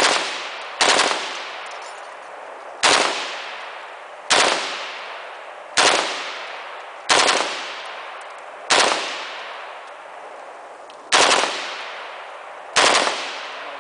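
H&K G36-style rifle fired one shot at a time, nine shots in all, about one to two and a half seconds apart. Each loud crack is followed by a ringing echo that dies away.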